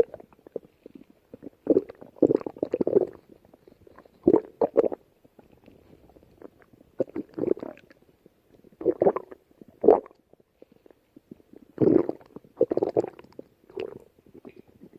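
Stomach growling: about a dozen short gurgling rumbles at irregular intervals, each under a second long, with quieter gaps between them.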